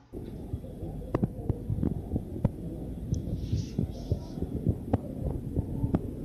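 Low rumble with irregular soft knocks, the sound of wind buffeting and handling on a phone's microphone while it films outdoors.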